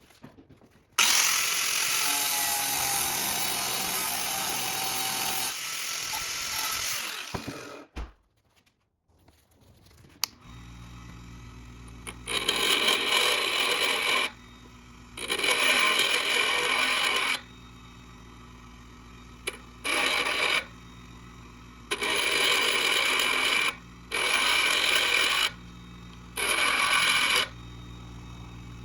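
A power tool grinding or cutting metal for about six seconds. Then a welder hums steadily while six separate welding bursts crackle, each lasting one to two seconds, as the bolt is welded.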